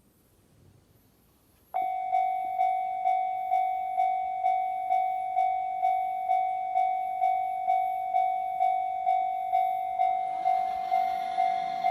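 Japanese railway level crossing's electronic warning bell, starting suddenly about two seconds in and ringing at about two strikes a second, the signal that a train is approaching. Near the end further tones rise in underneath it.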